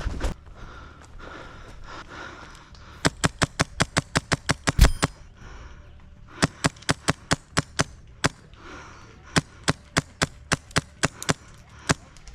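Airsoft gun firing rapid single shots, sharp cracks at about five a second, in three strings of roughly ten shots each with short pauses between, and a dull thud near the end of the first string.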